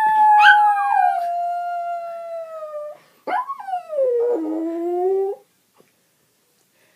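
A cockapoo howling: two long howls, each rising and then sliding slowly down in pitch, the second ending about five seconds in.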